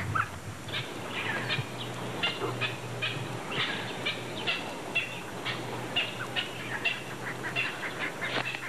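Birds calling: a rapid series of short, sharp calls, about three a second, with a few downward-sweeping notes among them.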